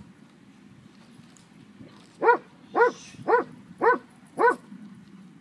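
Belgian Tervuren barking: five sharp barks in a row, about two a second, starting about two seconds in.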